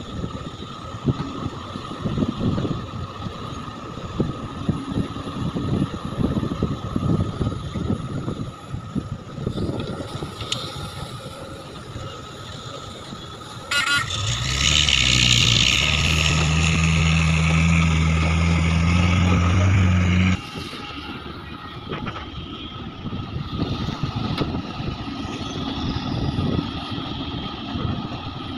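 Large Sumitomo hydraulic excavator's diesel engine working as it digs and loads a dump truck, an uneven low rumble. About halfway through, a much louder, steady engine drone with a hiss over it comes in suddenly, holds for about six seconds, then cuts off just as suddenly.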